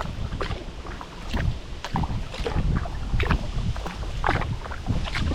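Kayak paddle blades dipping and splashing in the water in irregular strokes, over a low rumble of wind on the microphone.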